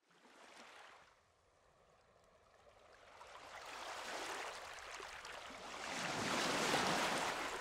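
Ocean waves washing in: a soft swell near the start, then two larger swells of surf rising and falling, the loudest near the end.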